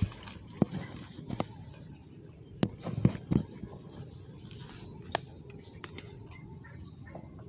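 A few irregular sharp knocks and clicks, with a small cluster of them about three seconds in.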